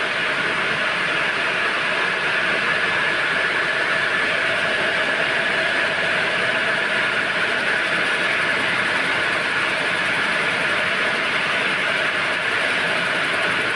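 Needle looms weaving belt webbing, running steadily: a dense, continuous mechanical clatter with a constant whine over it.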